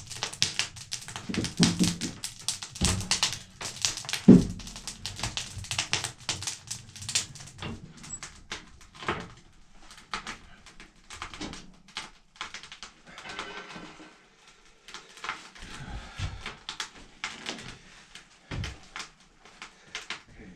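Wood fire crackling and popping in a wood stove, in rapid clicks that thin out about halfway through, with a few dull knocks of firewood being handled, the loudest about four seconds in.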